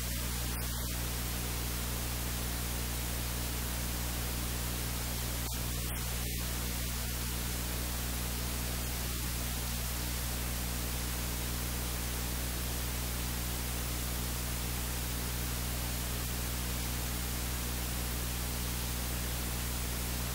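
Steady hiss of static with a low electrical hum underneath.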